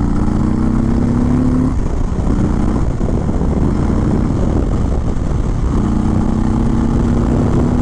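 Indian Springfield Dark Horse cruiser's V-twin engine under full throttle, accelerating hard: the engine note climbs, breaks off at an upshift about two seconds in, and climbs again in the next gear near the end, with wind rush in between.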